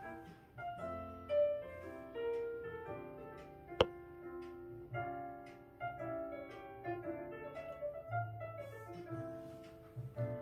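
Piano music with a classical feel, a run of held notes and chords. About four seconds in there is a single sharp click.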